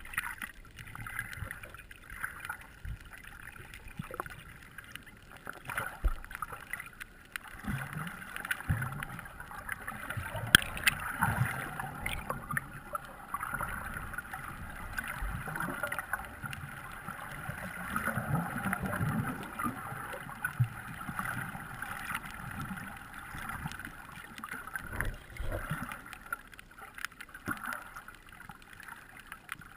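Muffled underwater sound heard through a waterproof camera housing: moving water with low rumbles, occasional knocks and a few sharp clicks, the sharpest about ten seconds in.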